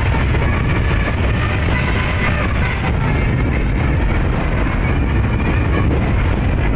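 Steady low rumble of a vehicle's engine and road noise on the move, with no sharp events.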